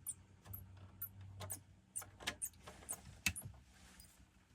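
Scattered small clicks and taps from multimeter probes and tools being handled in an opened audio interface, with a faint low hum for about a second early on.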